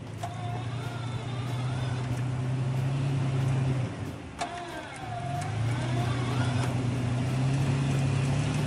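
Toyota FJ Cruiser's 4.0-litre V6 pulling under load as the truck crawls over rocks, in two long pushes with a brief let-off about four seconds in.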